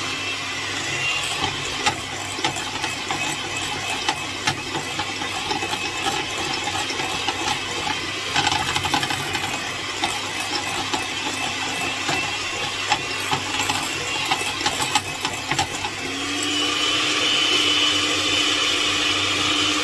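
Electric mixer running in a bowl of butter, icing sugar and cream, whisking them into a white chocolate filling, with scattered clicks. About 16 seconds in it speeds up, its whine rising in pitch and getting louder.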